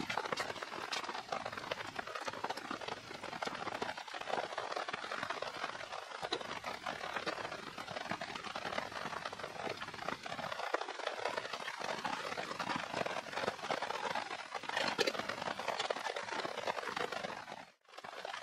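Steady rain falling on the forest with a wood campfire crackling. The sound cuts out briefly near the end.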